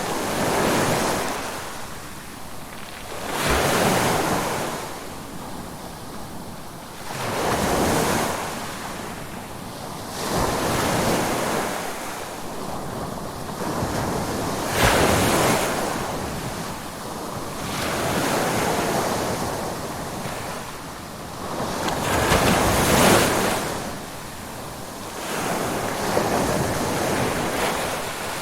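Ocean waves breaking and washing in, a swell of surf about every three to four seconds, with a hiss that rises and falls between them.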